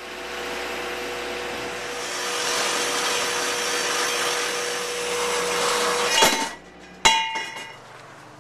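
Horizontal metal-cutting bandsaw running steadily as it cuts through bent steel tube, then stopping after about six seconds. Two sharp metallic clangs follow, the second ringing on, as the steel tube is knocked or set down.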